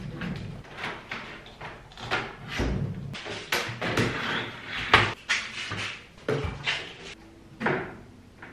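Irregular knocks and clunks of computer gear (a PC tower, monitor and keyboard) being set down and shifted on a wooden desk, the loudest knock about five seconds in.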